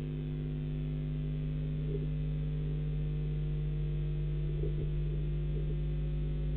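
Steady electrical mains hum in a nest webcam's audio feed, several steady pitches layered together, with a couple of faint brief noises.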